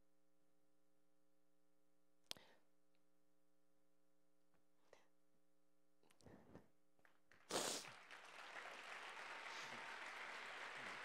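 Near silence with a faint steady electrical hum and a couple of small clicks. About seven and a half seconds in, a sudden thump is followed by steady audience applause in a large hall.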